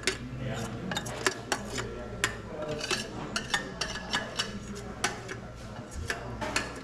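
A spoon stirring in a cooking pot, knocking and clinking irregularly against the pot, a few times a second, over a steady low hum.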